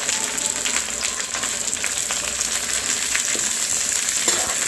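Chopped onion and capsicum sizzling steadily in hot oil in a kadai, with a few short spatula clicks and scrapes as they are stirred.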